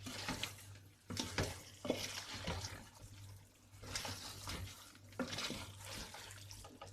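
A spoon stirring and scraping fried chicken and onion masala around a pan in uneven strokes, with a faint sizzle from the dry masala. A low steady hum runs underneath.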